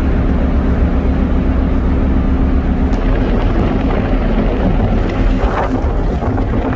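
Steady shipboard machinery noise: a loud low rumble with a constant hum, with a couple of light knocks partway through and near the end.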